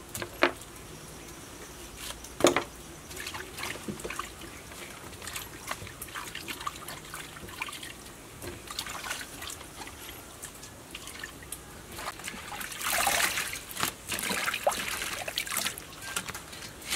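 Vegetables being washed by hand in a steel basin of water: splashing, trickling and dripping as leaves and cucumbers are lifted out, with two sharp knocks about half a second and two and a half seconds in and a louder run of splashing near the end.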